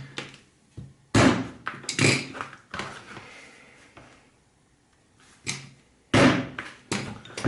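Hammer blows on a leather stitching punch driving holes through leather: a series of sharp knocks, three in the first few seconds and two more near the end.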